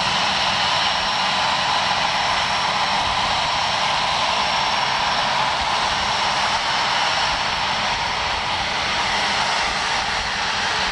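Jet airliner engines running, a steady even noise that neither rises nor falls.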